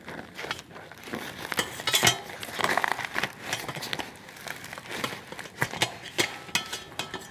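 Metal scissors snipping through a parcel of brown paper and packing tape, with the paper and tape crinkling and tearing, and a burst of tearing around two to three seconds in. The scissors and the parcel clink and knock against a stainless steel plate several times.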